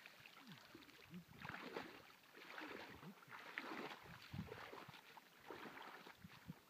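Faint, irregular swishing and splashing of a person wading through shallow lake water in a wetsuit.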